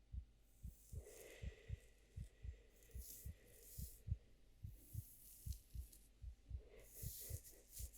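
A faint, steady heartbeat: paired lub-dub thumps a little under a second apart. From about a second in, soft hissy rustling sits above it.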